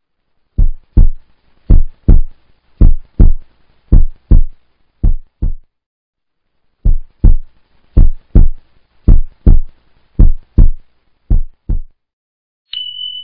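Heartbeat sound effect: deep double thumps, lub-dub, about one beat a second. Five beats, a short pause, then five more. Near the end a steady high tone starts.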